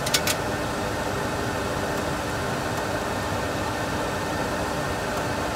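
Steady cockpit noise of a Boeing 737 Classic full flight simulator in the climb: an even rush of simulated engine and airflow noise with a faint constant hum. A few sharp clicks sound in the first half second.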